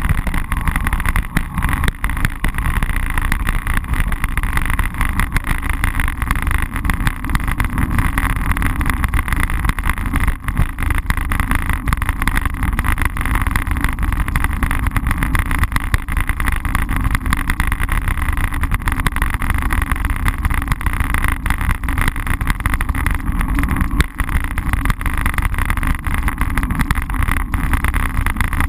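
Steady rumble and fast rattle of a bicycle-mounted GoPro Hero camera picking up road vibration and wind noise while the bike rolls over rough, cracked city asphalt.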